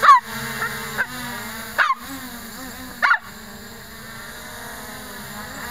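A dog barking four times, about once a second, over the steady hum of a small quadcopter's brushless motors.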